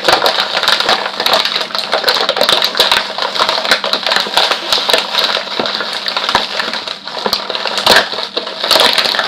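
Toy packaging crinkling and crackling steadily as a toy is unwrapped by hand, with a dense run of small crackles throughout.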